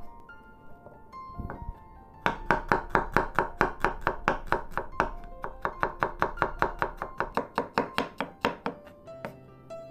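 Knife chopping shallots on a wooden cutting board in quick, even strokes, about four to five a second. The chopping starts a little over two seconds in and stops near the end, over soft background music.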